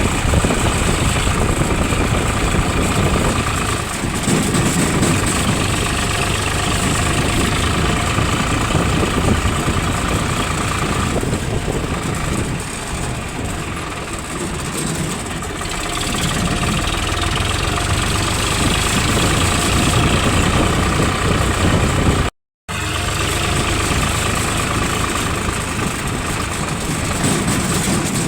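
Excavator's diesel engine running steadily, with a constant high whine over the engine noise; the sound cuts out for a split second about 22 seconds in.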